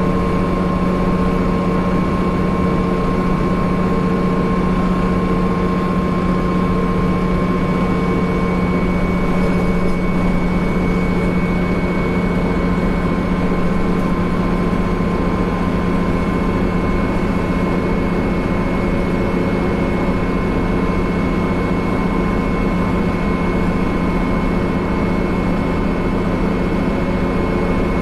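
City bus running at a steady engine speed, heard from inside the passenger cabin: a constant low drone with a steady high whine above it, without changes or stops.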